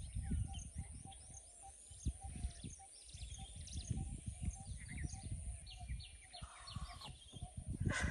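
Several birds chirping and calling, with a run of short repeated notes a little past the middle, over a low rumbling noise.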